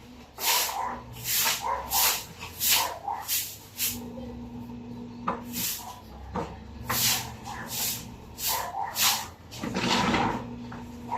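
Dog barking repeatedly in short sharp barks, about one to two a second, with a pause in the middle.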